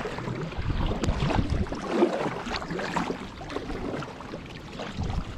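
Kayak moving on the water: irregular splashing and knocks against the hull, with no steady motor tone.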